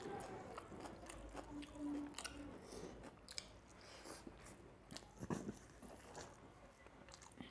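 Close-up chewing and biting of rice and small-fish curry, with scattered wet clicks and smacks, while fingers mix rice on a steel plate. A brief low hum comes about two seconds in.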